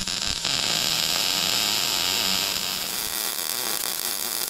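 Wire-feed (MIG-type) welding arc running steadily on a steel pipe: a continuous hissing crackle, easing slightly after about three seconds.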